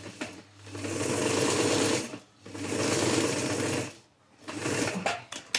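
Electric sewing machine stitching through gathered cotton fabric in two runs of about a second and a half each, with a brief stop between. A few short knocks follow near the end.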